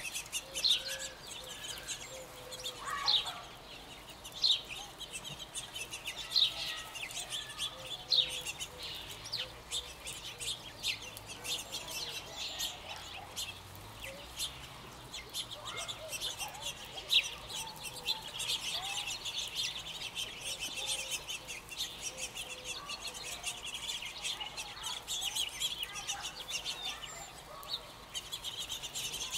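A foraging flock of California quail calling, with many short high chirps and soft low clucks throughout. The chirping grows denser in the second half.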